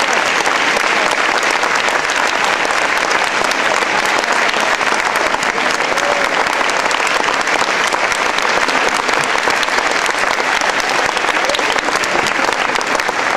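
Large audience applauding: a dense, steady run of many hands clapping.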